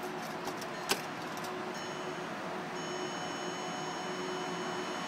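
Keys rattling and a sharp click about a second in as the Audi R8's ignition is switched on, then a faint steady high-pitched electronic whine from the car's systems, with the engine not yet running.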